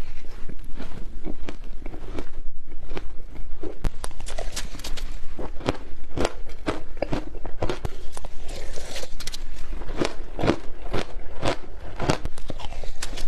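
Matcha shaved ice being bitten and chewed: a steady run of sharp, irregular crunches, about one or two a second.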